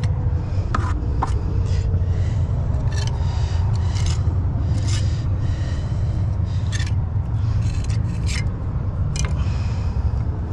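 Short, irregular scrapes of a hand finishing tool working wet patching mortar on a concrete slab, over a steady low rumble.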